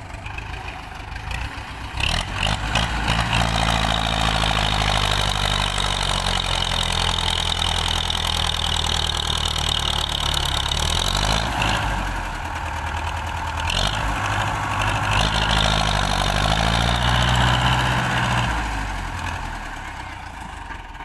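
Belarus tractor's diesel engine working hard under a heavy trailer load, straining enough to lift the front wheels. It gets louder about two seconds in, dips briefly around halfway, and eases off near the end.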